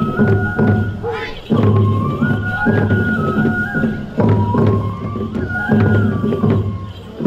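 Japanese folk festival music for a tiger dance: a bamboo flute plays a stepped melody over steady taiko drumming. The phrases break off briefly about a second in and again about four seconds in.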